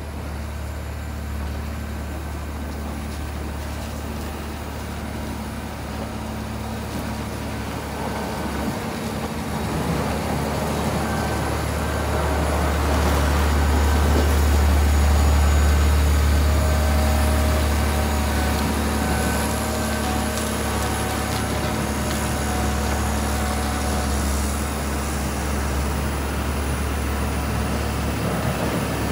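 Heavy snow-clearing vehicle's diesel engine running with a steady low drone, growing louder about ten seconds in and peaking midway before easing off a little.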